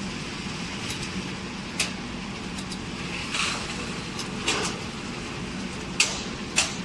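Caramel-coated popcorn pouring from a tilted stainless steel caramelizer drum onto a steel tray, a rushing rattle heard mostly in the middle, over a steady machine hum. Several sharp metallic clicks and knocks come through it.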